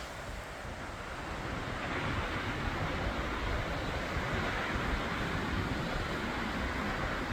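Strong wind buffeting the microphone over the surf of rough, wind-whipped Lake Superior waves; the wind grows louder about two seconds in.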